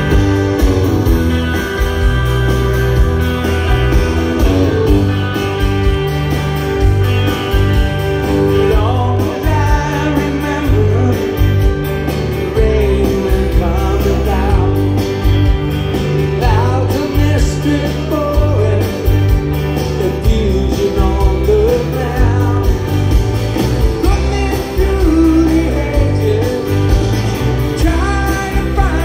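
Live rock band heard through a big outdoor PA from the crowd: guitars, bass and drums at a steady beat, with a man singing lead.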